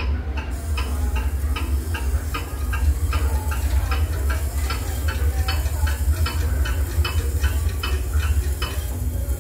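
Fast, even ticking, about three to four ticks a second, from an interactive attraction clock as its hands spin rapidly, over a steady low hum.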